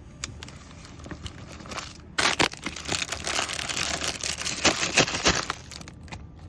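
Packaging crinkling and rustling with small clicks and knocks for about three seconds, starting about two seconds in, as items are packed into a gift bag.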